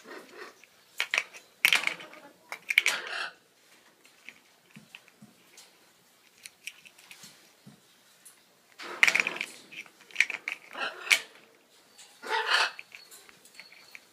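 African grey parrots giving short, harsh, growl-like calls and sharp clicks. The sounds come in two clusters of bursts with a quiet gap of several seconds between them.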